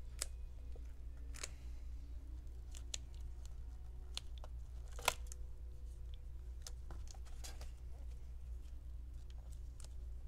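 Scattered small clicks and crinkles of gloved fingers picking at adhesive tape and cables around a laptop LCD panel's connector, with one sharper click about five seconds in, over a steady low hum.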